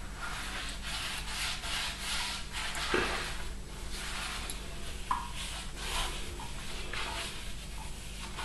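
Toilet being wiped down by hand with a bathroom wet wipe: repeated, irregular rubbing strokes.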